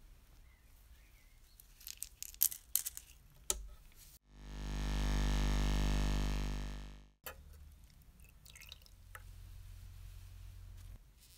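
A few light clicks and taps, then an ultrasonic cleaner runs for about three seconds with a steady hum that fades in and out.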